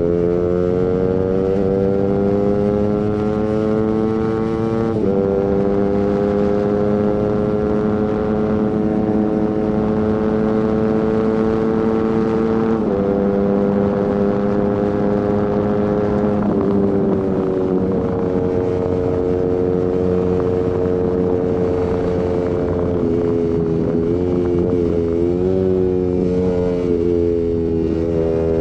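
Suzuki GSX-R150's single-cylinder engine through a Prospeed aftermarket exhaust, accelerating hard. The pitch climbs and drops sharply at three upshifts, about 5, 13 and 16 seconds in. Later the revs ease off, waver and dip for a couple of seconds, then climb again near the end.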